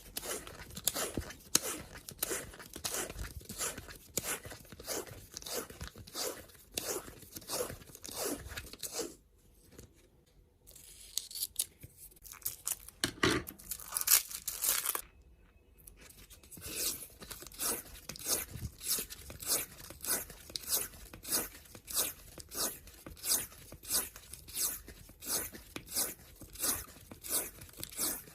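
Washi tape being pulled off its roll and wound onto a card, a quick sticky peeling crackle repeated about twice a second. The winding pauses twice, with a louder crinkle between the pauses.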